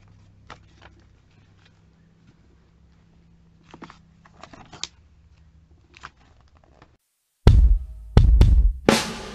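Glossy catalogue pages turned by hand: faint scattered rustles and soft paper clicks over a low hum. About seven and a half seconds in, loud music with a heavy drum beat starts abruptly.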